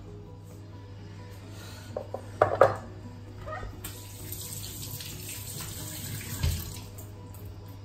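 A few sharp knocks, then a kitchen tap running into a steel sink for about three seconds, with a low thump near the end of the running water.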